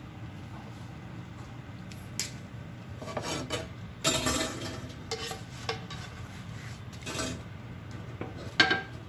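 Metal kitchenware being handled: utensils clinking and scraping against a flat pan and the stove grate in scattered short bursts, the longest scrape about four seconds in, and a sharp clank near the end.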